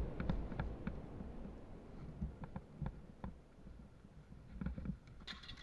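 Footsteps and gear rattle of a person moving on foot, picked up by a body-worn camera: faint, irregular clicks and knocks over a low rumble of handling noise.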